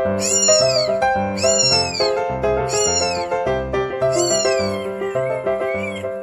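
Newborn kitten crying with thin, high mews about once a second, each rising and then falling in pitch, over background music.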